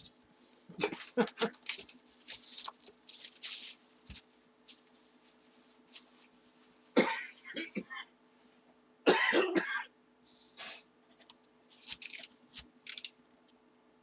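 A sealed cardboard hobby box being handled on a table: hands rubbing, sliding and turning it over in scattered short scrapes and rustles, with two louder short bursts about seven and nine seconds in.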